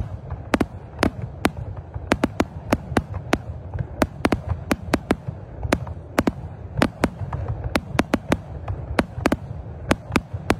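Aerial fireworks bursting in a rapid, irregular string of sharp bangs, several a second, over a steady low rumble.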